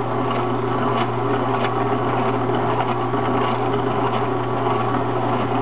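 Horizontal masticating (auger) juicer's electric motor running steadily with a low hum, with faint ticks now and then.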